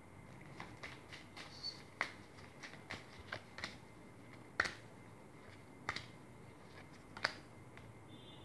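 Deck of tarot cards shuffled by hand: a string of irregular soft clicks and slaps as the cards riffle and knock together, with four sharper snaps among them.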